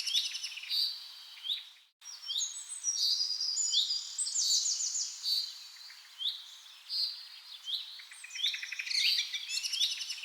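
Small birds chirping and trilling, many short repeated notes overlapping, with a brief dead gap about two seconds in.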